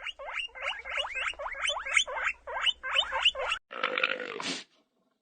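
An animal squeaking rapidly, a run of short rising squeaks about four a second, followed near the end by a short rough grunt-like sound that cuts off abruptly.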